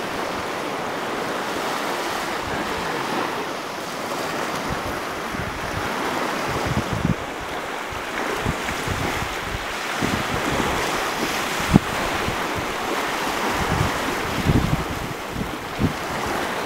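Wind buffeting the microphone over the steady rush of sea water, with uneven low gusts and a single sharp knock about twelve seconds in.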